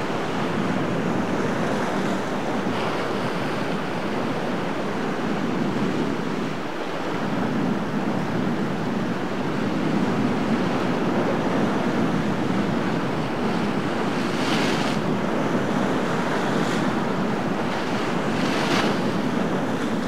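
Rough surf breaking steadily, with wind buffeting the microphone. Two short, louder hissing crashes of spray come about fourteen and a half and eighteen and a half seconds in.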